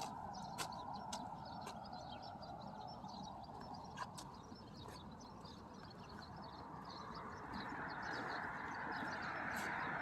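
Outdoor birdsong, many small chirps, with sharp clicks now and then. From about seven seconds in, a passing engine grows steadily louder.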